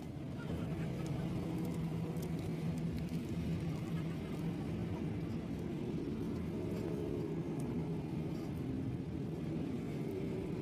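Steady low drone of an engine running, even in level throughout.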